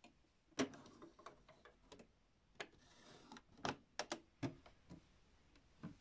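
Toy Miele washing machine's plastic parts being handled: a run of sharp, irregular clicks and knocks as the drawer and the porthole door are worked open, the loudest knock about half a second in.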